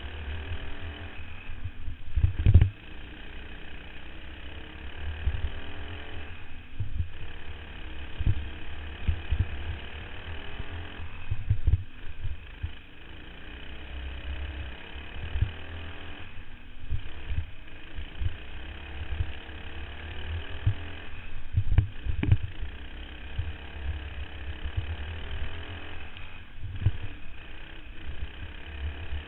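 Racing go-kart engine running hard, heard from a camera mounted on the kart, easing off and picking back up about every five seconds as it goes through the turns. Heavy low rumble and sharp knocks from wind and track bumps on the microphone.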